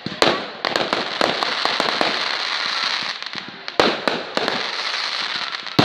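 Fireworks display: a rapid run of crackling and sharp bangs, with louder reports about a quarter second in, near four seconds and at the end.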